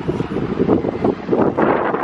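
Wind buffeting the microphone in uneven gusts, a loud rumbling rush that swells and dips.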